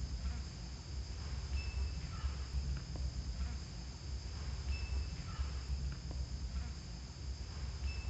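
Steady chorus of insects chirping, high and even, over a low rumble, with a short high chirp about every three seconds.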